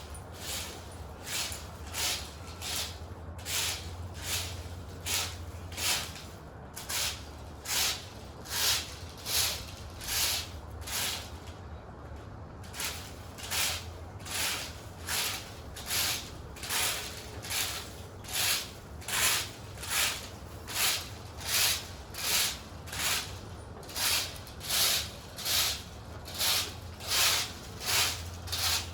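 Broom sweeping in steady, even strokes, about three every two seconds, with a short pause about twelve seconds in.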